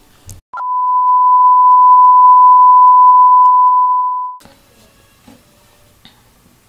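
Colour-bars test-card tone: one steady, loud beep held for about four seconds, starting about half a second in and cutting off abruptly. Faint room tone follows.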